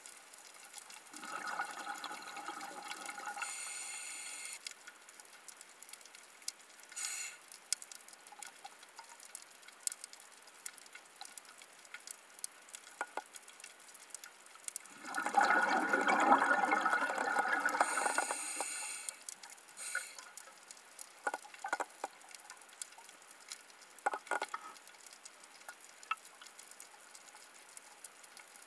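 Underwater bubbling of a scuba diver's exhaled breath from a regulator: a short burst about a second in and a louder, longer one midway, with scattered faint clicks and crackles in between.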